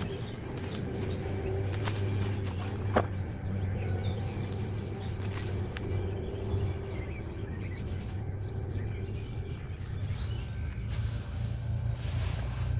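Rustling and snapping of nettle stalks and grass as gloved hands pull them up and drop them into a bucket, with scattered short crackles. Under it runs a steady low rumble, with a few faint bird chirps.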